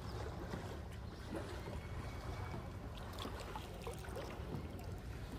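Kayak paddling through calm water: paddle strokes and water lapping and splashing at the hull, with a few faint, short splashes over a steady low rumble.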